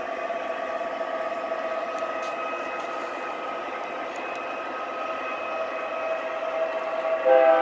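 Model train locomotive of the MTH Canadian Pacific Holiday Train set running with a steady, even-pitched hum from its sound system and drive, with faint clicks from the track. Near the end its horn comes in loud, a chord of several steady notes.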